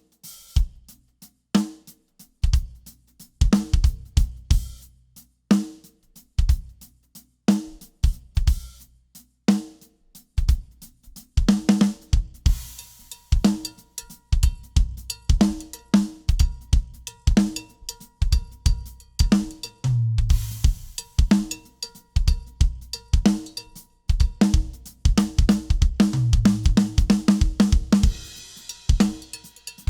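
A drum kit played solo as a warm-up: bass drum, snare, hi-hat and cymbals in a steady groove, broken by two low tom fills about two-thirds of the way through and near the end.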